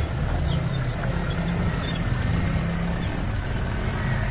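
Off-road 4x4 jeep engine running steadily at low revs as the vehicle crawls through a muddy rut.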